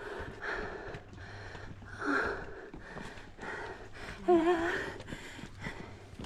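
A hiker breathing hard on a steep uphill climb: heavy breaths about every second, with a short voiced sound about four seconds in.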